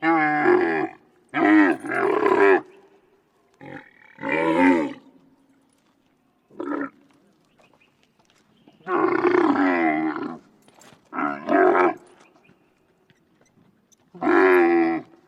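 Wild Bactrian camel calling: about nine separate calls with a wavering pitch and pauses between them, the longest about a second and a half near the middle.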